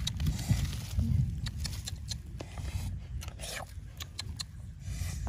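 Hands rustling through grass and pulling white wild mushrooms off a tree trunk: scattered scrapes, rustles and small snaps over a steady low rumble.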